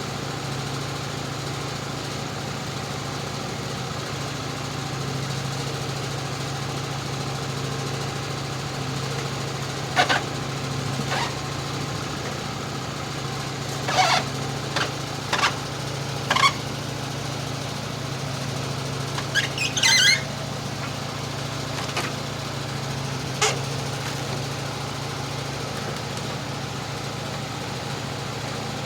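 A small engine idles steadily throughout, with about ten sharp knocks and clatters scattered through the middle of the stretch, the kind that come from boards being handled and stacked.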